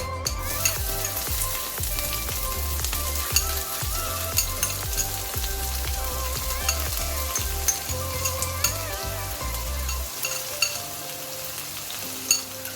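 Chopped beef, potato, carrot, onion and scotch bonnet frying in a pan for meat-pie filling, with a steady sizzle. A utensil stirring the pan gives sharp clicks now and then.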